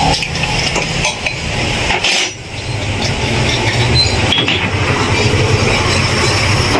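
A machine or engine running steadily with a low hum and light metallic clinking; it dips briefly about two seconds in, then picks up and grows louder toward the end.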